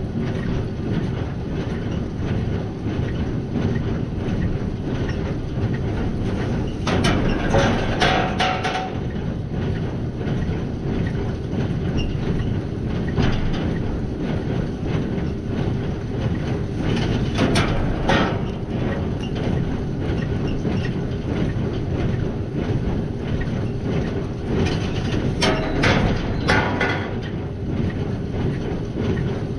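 Tractor pulling a twine-tying square baler through straw: a steady engine drone under the baler's rhythmic mechanical clatter. Three short, louder spells of clanking come through, about a quarter of the way in, near the middle and near the end.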